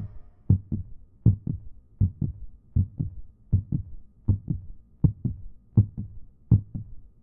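Heartbeat sound effect: steady paired lub-dub thumps, about 80 beats a minute.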